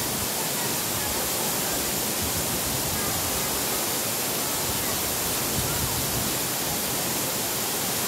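Waterfall pouring down a rock face into a plunge pool: a steady, even rush of falling water.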